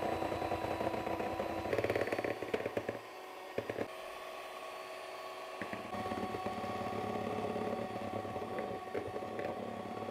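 Electric mixer beating egg whites for meringue: a steady motor whine, with the beaters rattling against the bowl. The lower hum drops away about three seconds in and picks up again near six seconds.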